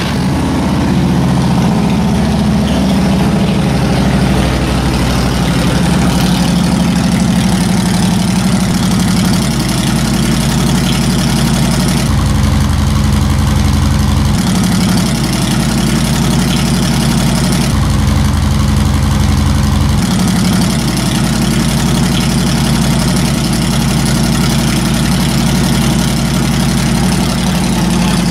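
Harley-Davidson 103 cubic inch Twin Cam V-twin idling steadily through Vance & Hines Big Shots dual exhaust with the stock V&H baffles still in, just after starting.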